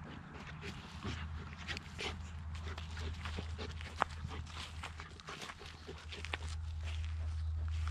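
A vizsla puppy and a goldendoodle play-wrestling in the grass: soft dog growls and grunts over scuffling, rustling and small clicks, with one sharp click about four seconds in. A steady low hum comes in about a second in.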